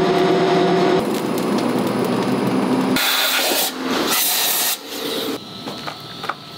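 Machinery in a silicone kitchenware factory, heard in short cuts: first a steady machine hum with a whine from the silicone roll mill, then dense mechanical noise, a stretch of loud hissing, and finally quieter clicks and rubbing as molded silicone lids are handled.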